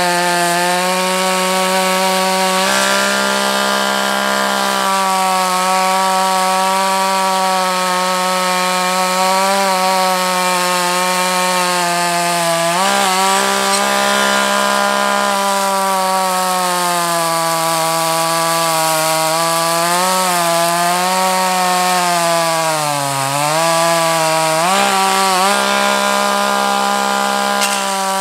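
Two-stroke chainsaw running at high speed, cutting through a felled red oak log. The engine note holds mostly steady but sags in pitch several times as the chain is loaded in the cut, most deeply about three quarters of the way through.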